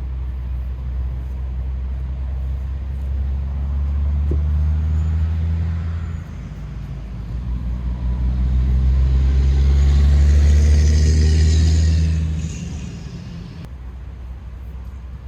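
A motor vehicle running: a steady low engine hum that swells twice, loudest a little after the middle with a rushing hiss on top, then drops back near the end.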